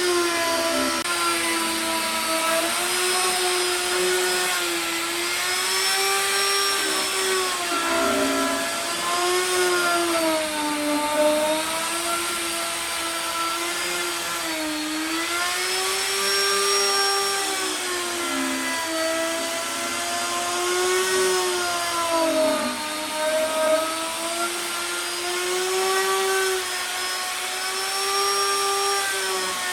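Electric power tool motor running continuously with a whining hum. Its pitch wavers up and down every few seconds and dips lower a few times.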